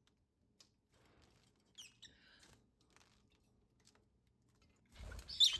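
Small pet parrots (lovebirds and budgies) chirping: a faint short chirp about two seconds in, then near the end a burst of rustling with a loud, sharp, high chirp.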